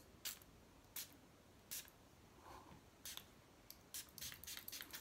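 Faint, scattered short clicks and rustles of small things being handled. They come about once a second at first, then in a quicker run over the last second or so.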